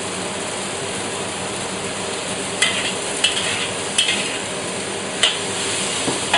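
Snow peas and onions sizzling steadily in a hot wok while being stir-fried, with a metal wok spatula scraping and clacking against the wok four times from about two and a half seconds in.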